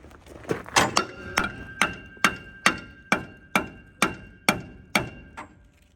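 Steady hammer blows on metal at the wheel of a 1979 Ford F350, a dozen or so strikes at about two a second, each leaving a ringing note. The hammering knocks the stuck brake drum loose from the hub.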